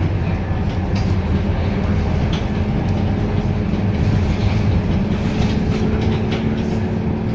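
Scania K230UB city bus under way, its diesel engine running at a steady pitch, with light rattles and clicks from the body and fittings.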